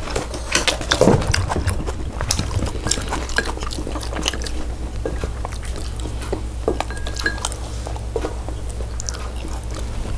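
Eating utensils clicking and clinking against dishes, a scatter of small sharp clicks over a steady low hum.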